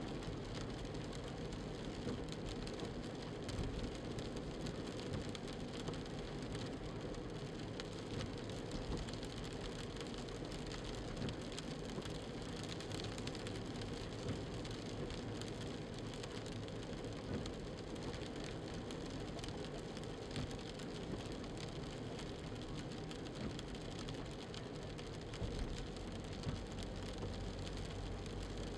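Steady hiss of car tyres on a wet road while driving, with a low rumble that grows louder near the end.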